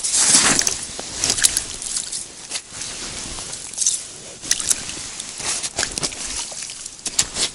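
Wet slush sloshing and squelching on waterlogged shore ice as an angler moves about and handles a freshly caught pike, with irregular rustles and short sharp clicks; the loudest splashy burst comes in the first second.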